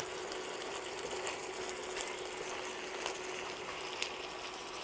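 Minced pork with chopped onion and peppers frying in a pan, a soft even sizzle with a few faint clicks, and a faint steady hum underneath.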